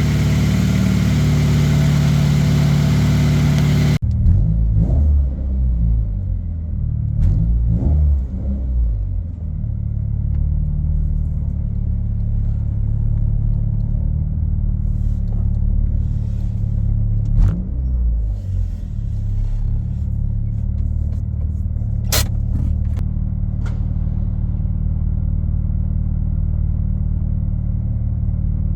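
Honda's swapped JDM F23A four-cylinder engine running with no air filter, a full, bright intake sound. About four seconds in it changes abruptly to a deeper, muffled engine sound with a few brief rises in revs, then settles to a steady drone.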